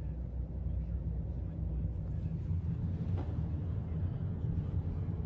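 Steady low rumble of road and engine noise heard inside a moving Toyota's cabin, with a faint tick about three seconds in.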